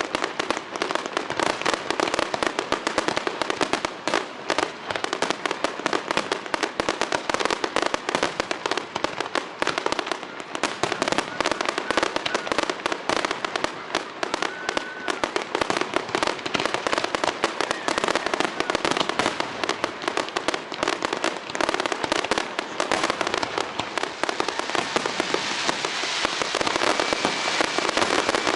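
Aerial fireworks display going off in rapid succession: a dense, continuous stream of bangs and crackles, many a second, merging into a more even crackling hiss near the end.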